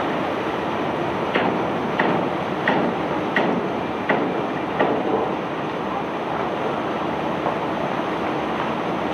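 Steady noise of a self-unloading barge's machinery at work. Over it, in the first half, come six sharp metallic clanks, evenly spaced about two-thirds of a second apart, each ringing briefly.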